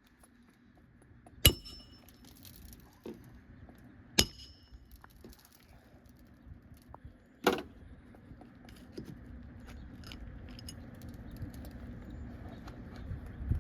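Hammer driving roofing nails through an asphalt shingle: three sharp metallic strikes a few seconds apart, each ringing briefly, with light taps and handling clicks between.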